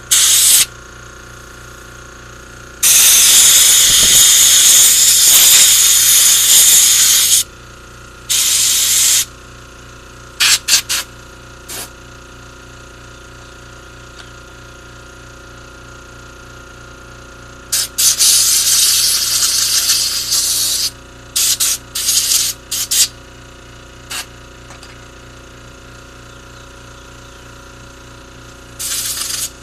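Pressurised spray hissing in repeated bursts: a long blast of about four seconds, a shorter one, a quick run of puffs, then a blast of about three seconds followed by more short puffs, used to clean out a fuel filter.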